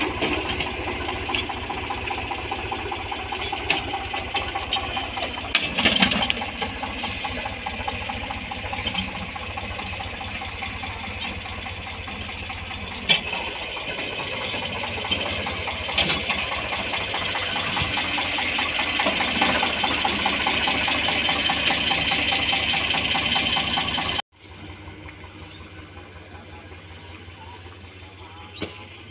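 Eicher tractor's diesel engine running steadily while pulling a mouldboard plough through soil, with a few sharp clanks along the way. Near the end the sound drops suddenly to a much quieter level.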